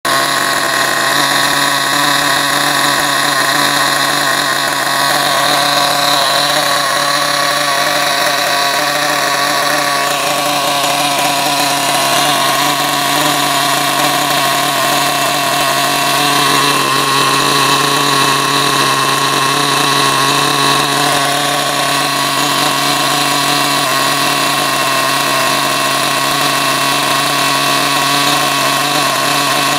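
Small 4 cc JET .28 glow-fuel nitro engine of an RC car idling steadily with a rich idle mixture, run stationary during break-in. There is a slight change in tone about ten seconds in.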